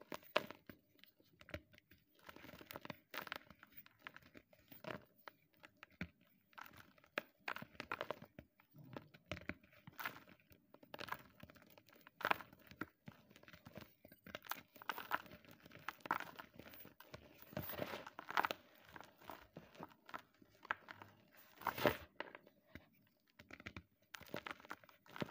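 Blocks of gym chalk crushed and crumbled by hand: an irregular run of dry crunches and crumbling, with a few louder crunches scattered through.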